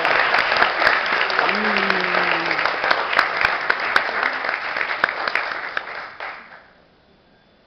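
Audience applauding, the clapping thinning and dying away about six and a half seconds in.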